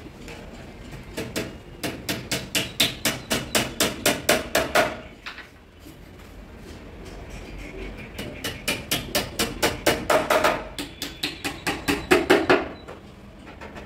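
Hammer tapping small nails into wooden edge beading along the edge of a plywood cupboard door. There are two runs of quick, even taps, about four a second, with a pause of a few seconds between them.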